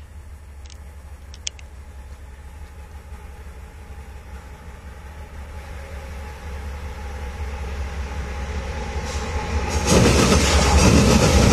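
Train approaching: a low rumble grows slowly louder, then about ten seconds in the noise jumps sharply as the train reaches the trackside and starts to pass.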